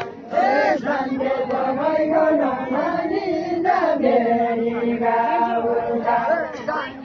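A crowd of villagers chanting together, many voices holding long drawn-out notes that bend slowly up and down in pitch.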